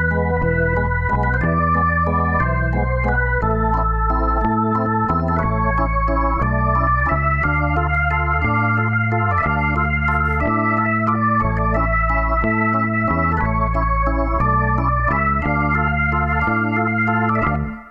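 Background music: an electronic organ-style keyboard tune of held, stepping notes over a moving bass line, cutting off just at the end.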